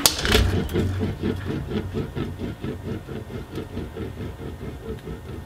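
An egg drops into a wok with a single sharp knock. It is followed by a steady, rhythmic low buzz from the induction hob heating the wok, pulsing about five times a second and slowly getting fainter.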